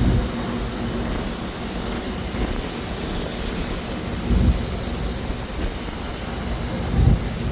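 Wind rumbling on the microphone over a steady hiss, with stronger gusts about four seconds in and near the end.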